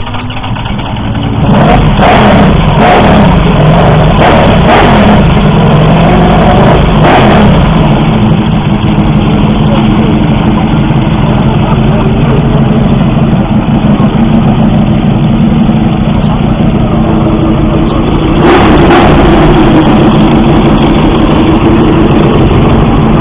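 Ducati Desmosedici RR's V4 engine running loud: it jumps up about a second and a half in and is blipped several times over the next few seconds, then runs on steadily, getting louder again about 18 seconds in.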